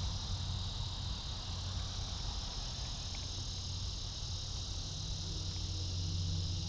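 Steady chorus of crickets and other night insects, a continuous high trill, over a constant low hum.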